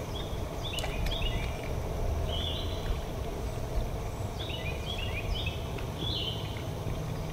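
Birds calling in short, high chirps that come in several quick clusters, some stepping down in pitch, over a steady low rumble.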